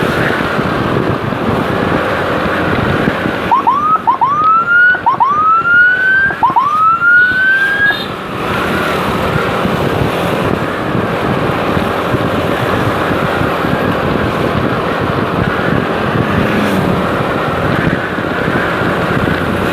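An escort motorcycle's siren gives four rising whoops in quick succession about four seconds in, each one longer than the last. Under it, the steady rush of wind and the motorcycle riding at speed.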